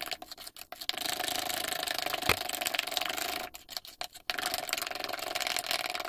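Metal spoon beating eggs, sugar and melted butter in a glass bowl: fast, steady clicking and scraping against the glass, with two short pauses and one louder knock about two seconds in.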